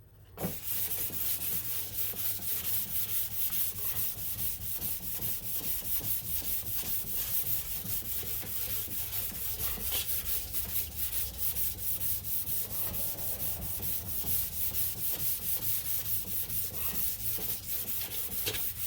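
Hand sanding a repaired car body panel with 400-grit sandpaper, in steady rhythmic back-and-forth strokes over the spot putty, bare metal and surrounding paint to make the whole area uniform for primer.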